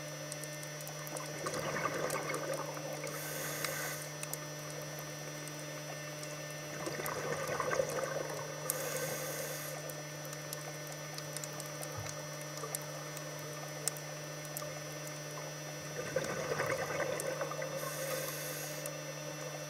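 Scuba diver breathing through a regulator, three breaths about seven seconds apart: each exhalation a couple of seconds of bubbles burbling, followed by a short inhalation hiss. A steady low hum runs underneath.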